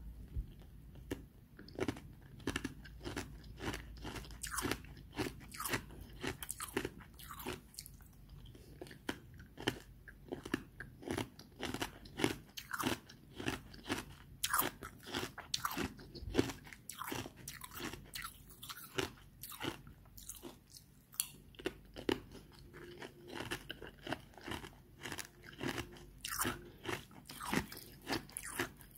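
Close-miked chewing of hard ice, a steady run of sharp, crackling crunches, about two or three a second.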